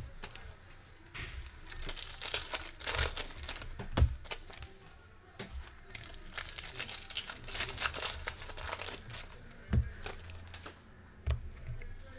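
Foil trading-card pack wrappers crinkling and tearing as packs are handled and ripped open, with two dull knocks, about four seconds in and near ten seconds.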